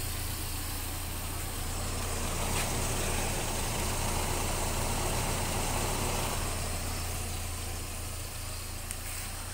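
Nissan Terrano's 2.4-litre four-cylinder petrol engine idling steadily on its newly fitted replacement carburetor.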